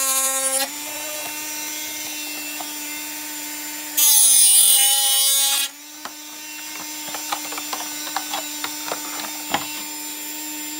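Rotary tool on a flexible shaft running with a steady high whine. Twice it grinds loudly into black plastic to trim the corners of a part, for under a second at the start and for about a second and a half some four seconds in, its pitch dipping slightly under the load. Light clicks and taps follow in the second half, and the motor starts to wind down at the very end.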